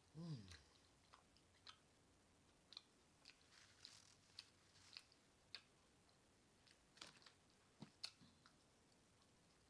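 A person chewing a mouthful of burger close to the microphone: soft, wet chewing with scattered lip smacks and clicks. Right at the start there is a short low sound from the throat that drops in pitch.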